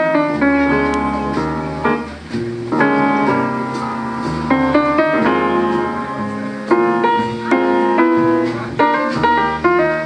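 Piano-led music with a bass line, played through small Hitachi Lo-D HS-1 speakers driven by a MUSE M15 EX2 class-T mini amplifier (Tripath TA2024 chip).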